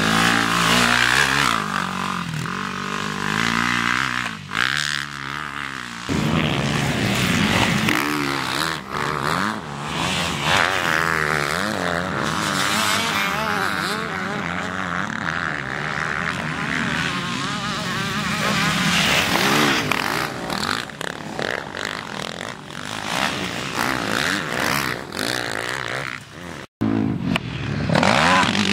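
Racing quad ATV engines revving up and down as they ride the motocross track, the pitch rising and falling through throttle and gear changes. The sound cuts out for an instant near the end.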